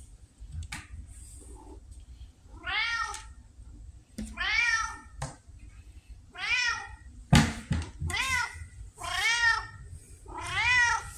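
Red tabby cat meowing about six times, each meow rising then falling in pitch, which the owner takes for asking for food. There is a sharp knock about seven seconds in.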